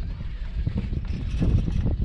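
Wind rumbling on the microphone, with a few light knocks a little past halfway.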